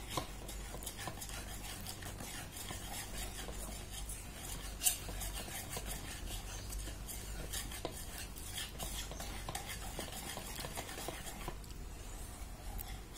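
A wire balloon whisk beating a mixture in a stainless steel bowl, its wires scraping and clicking against the metal in a quick, uneven rhythm, with one sharper knock about five seconds in.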